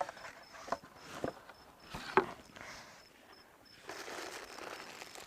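Fishing tackle and bait being handled: a few light knocks and clicks, then soft rustling from about four seconds in.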